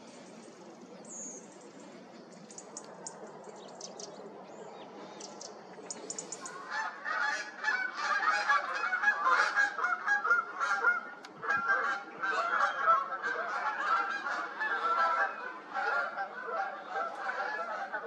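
A flock of geese honking, many calls overlapping, coming in about six seconds in and carrying on. Before that, only faint high chirps over a low hiss.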